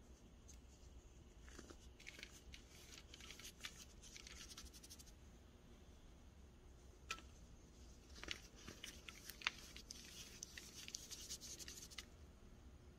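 A dried block of pink baking soda crushed and crumbled between fingers, the powder crunching and rustling over a metal tray. The soft crackling comes in two spells, the second longer and holding a few sharper crunches.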